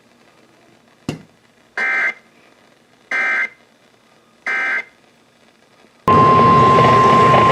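Emergency Alert System end-of-message code: three short, buzzy digital data bursts about 1.3 seconds apart, closing a weather radio warning. About six seconds in, loud static starts with a steady tone near 1 kHz running through it.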